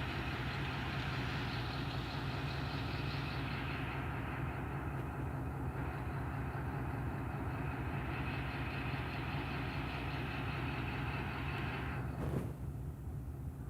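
ZCU-20 diesel locomotive engine running steadily with a low throb. A single sharp knock comes near the end.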